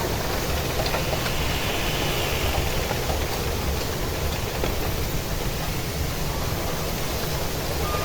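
Strong wind buffeting the microphone: a steady rushing hiss with an uneven low rumble.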